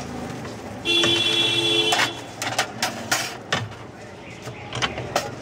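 A two-note vehicle horn sounds once for about a second over street noise. It is followed by a quick run of sharp metallic clicks and clatters from the hand-cranked popcorn kettle being worked.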